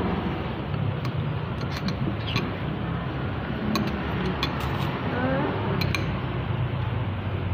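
Steady low background rumble of a busy roadside food stall, with a few light, sharp clinks of a metal spoon against a ceramic bowl scattered through it.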